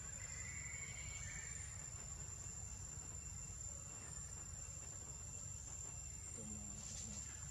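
Insects in the forest keeping up one steady, thin, high-pitched trill over a low steady rumble, with a fainter second insect or bird sound during the first second or so.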